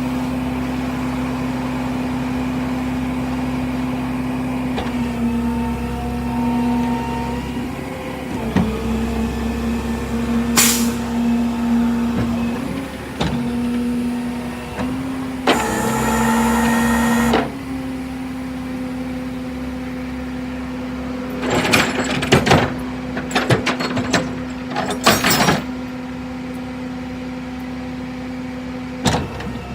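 A vehicle running with a steady hum that shifts pitch a few times. There is a two-second burst of hiss about halfway through and a run of sharp metallic clanks and knocks later on.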